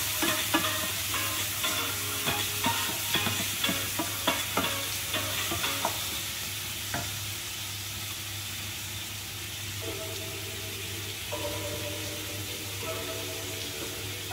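Chopped chicken sizzling in a frying pan while a utensil stirs it, clicking and scraping against the pan for about the first six seconds. After that the frying goes on as a steady sizzle.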